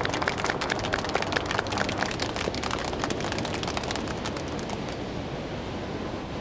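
A group of people applauding with many quick hand claps. The clapping dies away about five seconds in, leaving a steady hiss.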